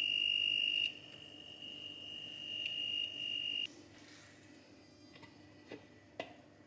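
A steady high-pitched electronic tone, like an appliance beep, held for about three and a half seconds and then cut off, followed by two soft clicks near the end.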